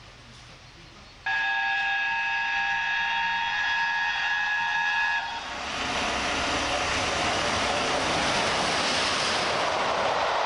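A1 Pacific steam locomotive 60163 Tornado's whistle sounds suddenly about a second in and holds for about four seconds, then the locomotive and its coaches rush past at speed in a loud, steady wash of exhaust and wheel noise.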